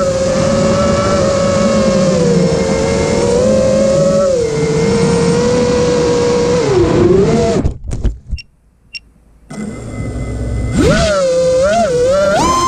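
Eachine Wizard X220 racing quadcopter's brushless motors whining, the pitch wavering with the throttle. About seven and a half seconds in the whine drops sharply and almost dies away for about two seconds as the throttle is cut. It then comes back, rising steeply in pitch near eleven seconds.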